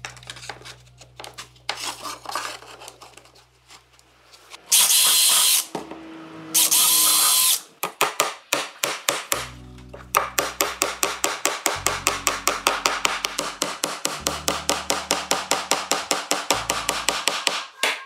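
A hammer tapping rapidly and evenly on a wooden frame, about seven strikes a second, through the second half. Earlier come a few light knocks and two short, loud bursts of hiss.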